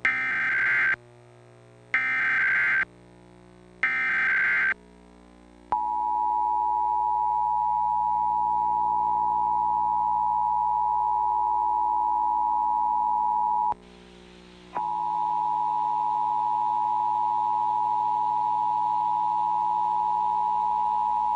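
Emergency Alert System test tones: three short screeching bursts of the digital SAME header, then the steady two-tone attention signal (853 and 960 Hz together). The attention tone drops out for about a second partway through, then carries on.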